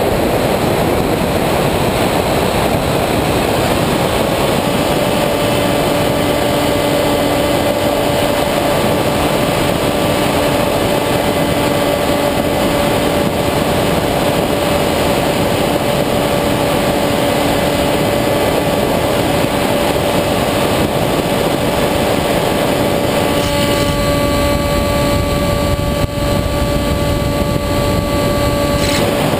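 Wind rushing over a Multiplex EasyStar II foam model plane in flight, with the steady whine of its electric pusher propeller, recorded by the camera on board. The whine holds one pitch from a few seconds in, and its tone shifts about three-quarters of the way through.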